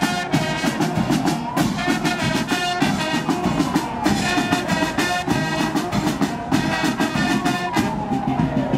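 Brass band music with drums. Behind it a siren wails in slow sweeps that fall in pitch and restart every two seconds or so.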